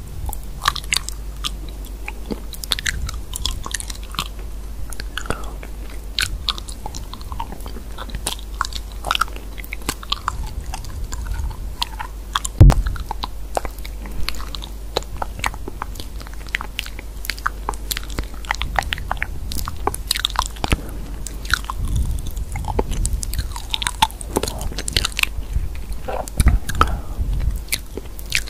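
Quick, irregular clicks and taps of typing on a smartphone touchscreen keyboard over a steady low hum, with one louder knock about halfway through.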